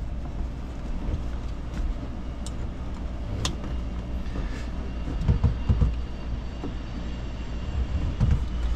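Steady low workshop hum, with two light clicks and a few soft knocks from a hand reaching among the hoses and wiring of a jet ski's engine bay.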